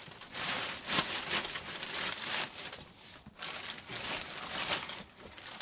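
Clear plastic wrapping bag crinkling and rustling in uneven bursts, with brief pauses, as it is handled around a chair's backrest.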